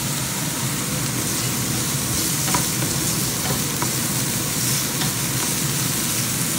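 Diced garlic and onion sizzling steadily in hot oil in a nonstick frying pan, with a wooden spatula stirring and scraping them around the pan, with a few faint clicks from the spatula.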